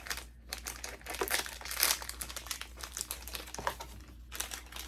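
Snack packet crinkling in irregular crackles as it is opened and handled.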